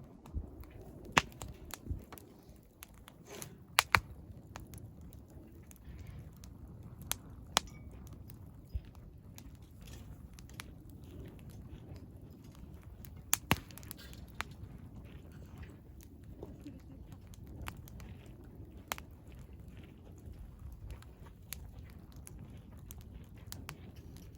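Wood fire burning in a fire pit, crackling with irregular small snaps over a low steady rumble, and a few louder sharp pops standing out.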